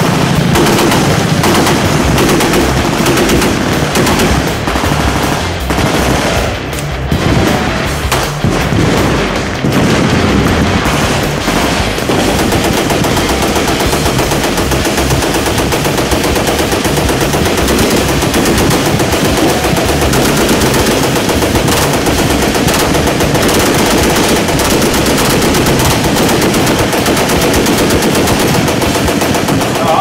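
Continuous automatic gunfire from many machine guns firing together along a firing line, with a handgun firing close by. The shots run together into an unbroken rattle that eases for a moment about seven seconds in.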